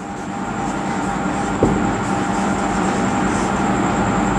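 Steady rumbling noise with a faint hum, like a passing vehicle, growing louder over the first second or two and then holding, with one sharp click about one and a half seconds in.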